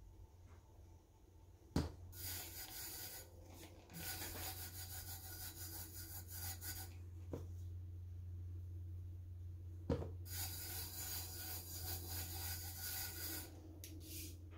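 Ultra-fine glitter being shaken from a shaker-top jar onto a tumbler coated in double-sided adhesive and worked in by hand. It makes a scratchy hiss in two stretches, of about five and about three seconds, each starting with a click.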